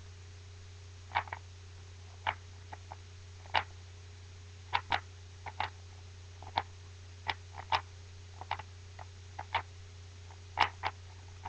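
Rubik's Cube being turned by hand: sharp, irregular plastic clicks of the layers snapping round, about two a second in uneven clusters.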